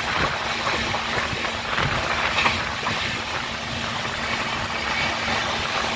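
Express passenger train running at speed, heard from an open coach window: a steady rush of wind and wheel-on-rail noise with a faint low hum underneath.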